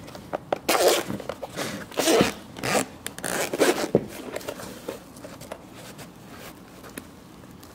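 Zipper on a fabric-covered microphone carrying case being unzipped in several quick rasping pulls around the case, then quieter handling as the lid is opened.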